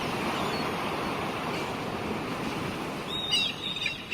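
Yacht sound effect: steady rushing of water and waves along the hull, with a few brief high whistling calls near the end.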